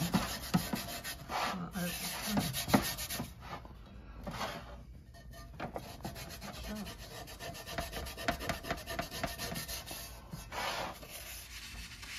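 A scouring pad scrubbing rust from the inside of a wet, soapy cast iron skillet in quick back-and-forth strokes, easing off briefly a couple of times.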